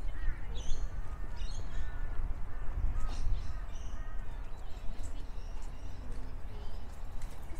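Several birds calling, many short chirps and whistles overlapping, over a steady low rumble.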